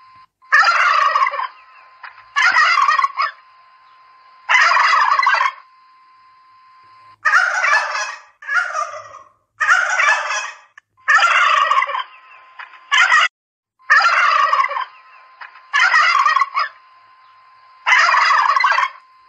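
Domestic turkeys gobbling: about a dozen rapid rattling gobbles, each under a second long, coming one every second or two. A faint steady high tone hums in the gaps between calls.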